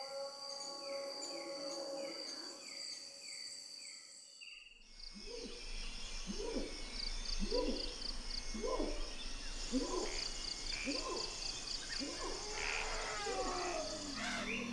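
Tropical rainforest at night: steady high insect song with a repeated short falling chirp. About five seconds in it changes to the dawn chorus, with cicadas pulsing and a series of rising hooting calls, about one a second, that grow busier toward the end.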